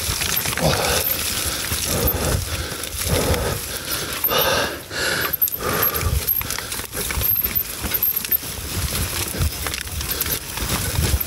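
Mountain bike going down a rough, muddy trail, its chain and frame rattling with many sharp metallic clicks over a steady rumble of tyres sliding through mud.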